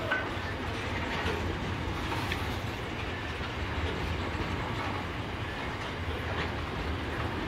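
Loaded container freight wagons rolling steadily past, with a continuous low rumble and wheels clicking now and then over the track.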